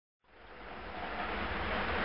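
Outdoor trackside noise fades in from silence about a quarter of a second in: a steady rushing hiss with a low rumble underneath, growing louder.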